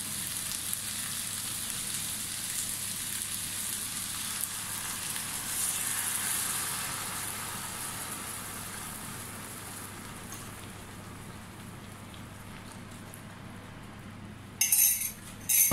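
Trevally steaks and aromatics sizzling in hot oil in a stainless steel pan, the sizzle softening as coconut milk is poured in. Near the end, two loud sharp clinks of a metal spoon against the cup or pan.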